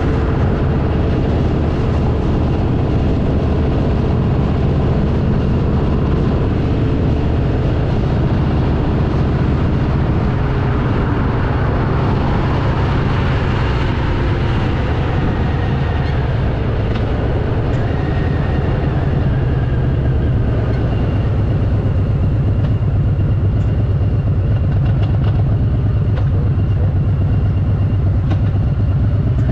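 Harley-Davidson V-twin motorcycle engine running at a steady riding pace, a constant low rumble.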